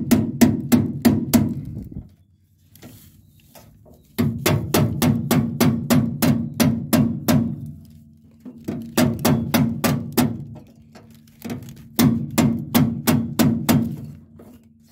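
A small hammer taps rapidly on the headliner tack strip and its clips in a 1968 Camaro's rear window opening, driving them into the body. The taps come in four quick runs of about four or five strikes a second, each strike followed by a short ring.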